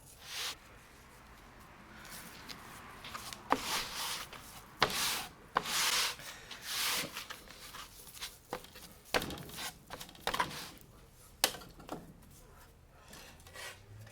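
Hands rubbing and handling a large raw beef eye of round coated in salt for a dry brine, with irregular rough swishes and a few sharp knocks.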